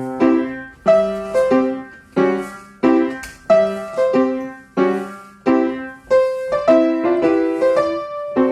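Piano playing accompaniment for a dance exercise: chords struck in a steady rhythm, about two a second, each ringing out and fading before the next.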